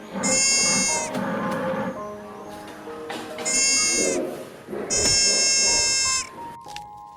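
A sheep bleating three times, each call lasting about a second, over soft background music.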